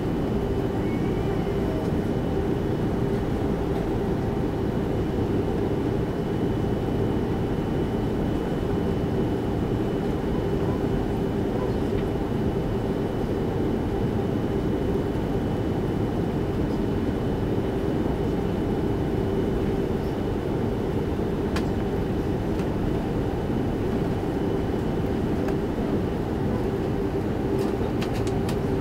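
Steady cabin noise inside an Airbus A330-300 airliner: the even rumble of the engines and airflow, with a constant hum and a faint high whine, and a couple of faint clicks near the end.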